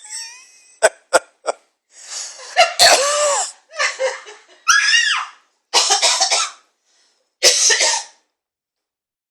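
A young child coughing over and over: a few short dry coughs, then longer coughs with a high voiced sound in them, coming in separate bouts with short gaps between them and stopping near the end.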